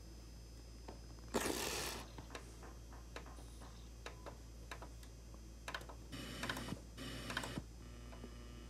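Handling noise: scattered light plastic clicks, with a short rustle about a second and a half in and a cluster of clicks and rustles near the six- to seven-second mark.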